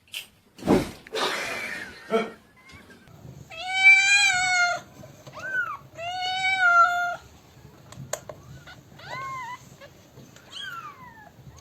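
A domestic cat meowing: two long, loud meows each over a second, then a few short meows. A knock and a rustle come in the first two seconds.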